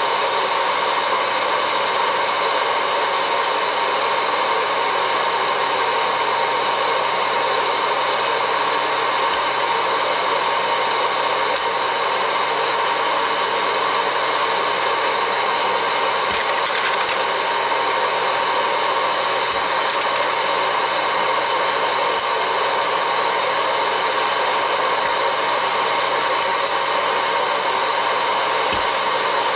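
Vintage Wear-Ever Popcorn Pumper electric hot air corn popper running: its fan and heater give a steady rushing blow with a hum in it, and a few faint clicks come now and then.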